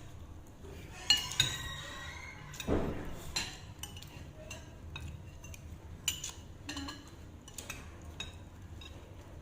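Cutlery clinking against dishes while eating: a string of sharp clinks with short ringing, the loudest about a second in and again near three seconds.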